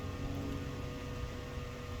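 Steady electrical hum with a low background rumble.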